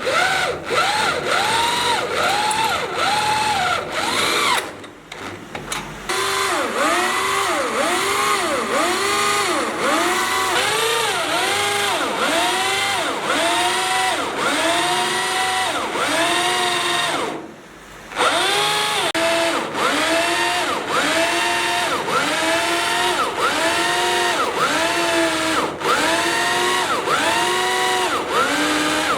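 Electric power drill boring into steel, the motor's whine rising and falling in pitch about twice a second as the bit bites and loads up. It eases off briefly twice, about five seconds in and again near eighteen seconds.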